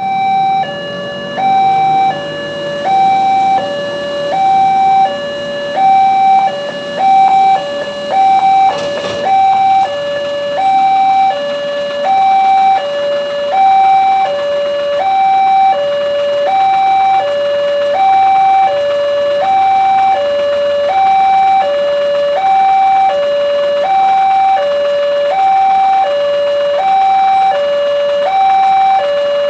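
Indonesian railway level-crossing alarm sounding its two-tone electronic warning: a higher and a lower tone alternating evenly, each held about 0.7 s, the signal that a train is approaching and the barrier is closing. A brief sharp knock is heard about nine seconds in.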